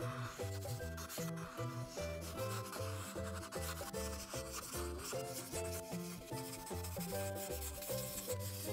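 Ohuhu art marker rubbing back and forth on paper in steady scratchy strokes as an area is filled in with colour. Background music with a bass line and a simple stepping melody plays underneath.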